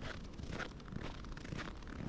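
Footsteps crunching in snow at a steady walking pace, about two steps a second.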